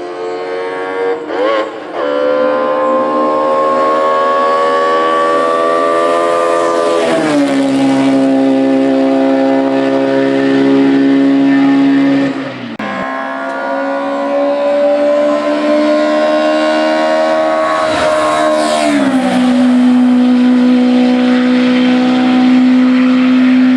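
Racing car engine at full throttle on a hillclimb course, held high and rising slowly, then dropping in pitch at gear changes about a third of the way in and again near the end, with a short lift around the middle.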